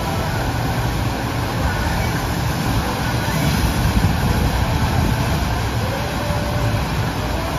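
Steady rush of pumped water from a FlowRider surf simulator, a thin, fast sheet of water racing up the wave slope under a surfer.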